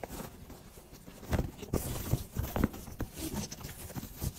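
Cotton bag fabric rustling and crumpling as it is handled and turned right side out by hand, with irregular soft taps and brushes as fingers push out the corners.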